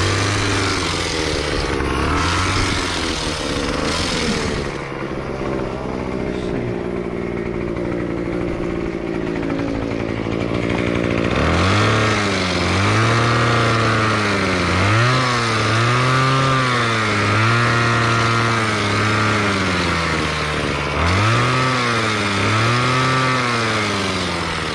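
A small gasoline engine running, then from about halfway through revved up and dropping back again and again, about one rev every second and a half, with a short break before the last two revs.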